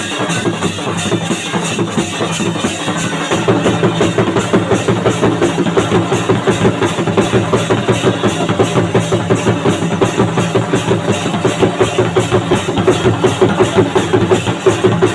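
Fast, steady drumming in a dhamal rhythm, about four to five strokes a second, growing louder about three seconds in.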